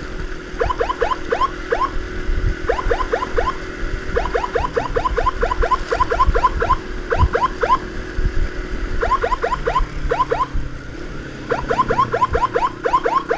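Electronic emergency siren blasting in short bursts of fast rising yelps, about six a second, sounded repeatedly to clear traffic for an ambulance. A motorcycle engine and road noise run underneath.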